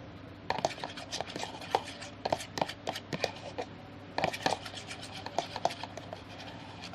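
A spoon stirring a glue-based slime mixture in a bowl, with irregular clicks and scrapes of the spoon against the bowl, busiest in two spells about a second in and past the middle.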